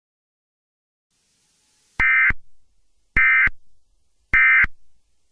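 Three short bursts of Emergency Alert System digital data tones, each a harsh two-tone warble about a third of a second long, spaced a little over a second apart. This is the End of Message signal that closes an EAS alert.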